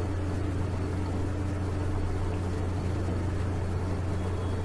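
A steady low hum with faint hiss under it, unchanging throughout: background noise picked up by the recording microphone.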